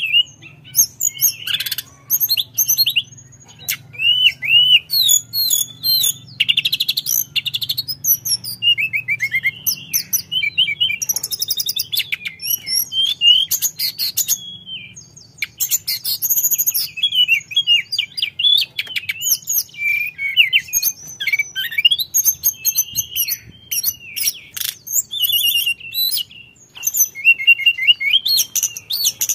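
Caged tledekan gunung, a Cyornis blue flycatcher, singing a long, busy run of varied high whistles and trills, breaking off briefly about three seconds and fifteen seconds in.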